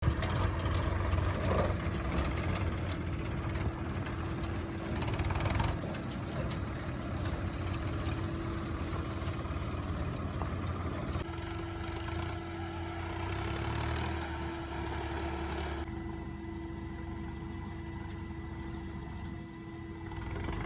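Diesel engines of a Sonalika tractor and a JCB 3DX backhoe loader running with a steady drone. The sound shifts abruptly a few times.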